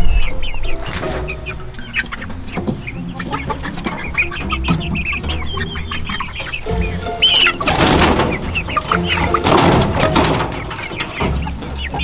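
A flock of chickens clucking and calling, with many short calls throughout, at a coop where young birds are being herded up the ramp. A stretch of louder rustling comes about eight seconds in.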